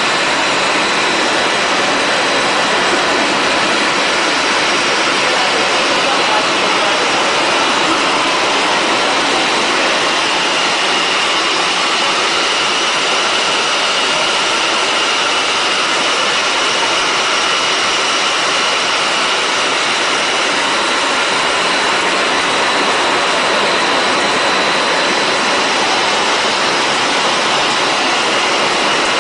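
PP/PS plastic sheet extrusion line running: a steady mechanical rush of rollers, motors and blowers, with faint high steady whines over it.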